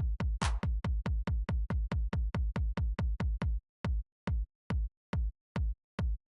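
Background electronic music: a drum-machine beat of deep kicks at about four a second, with a short hiss about half a second in. Past the middle the beat thins to about two kicks a second.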